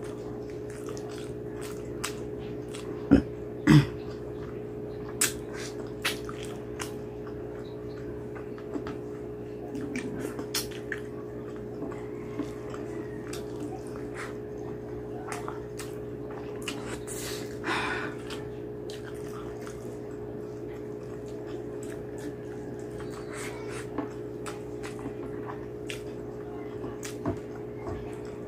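Close-miked eating by hand: wet chewing and lip smacks on a mouthful of rice and curry, with many short sharp mouth clicks and two loud thumps about three to four seconds in. A steady low hum sits under it all.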